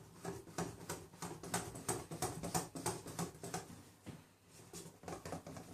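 Pancake batter being beaten by hand in a bowl: the utensil clicks and taps against the bowl about three or four times a second, with a brief lull about four seconds in.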